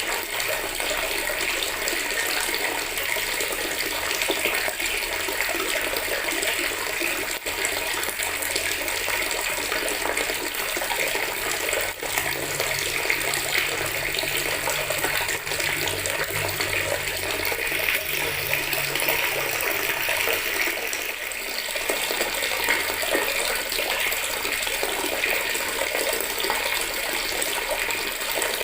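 Water from a tap pouring steadily into a plastic bucket, a continuous splashing rush. A faint low hum joins in partway through.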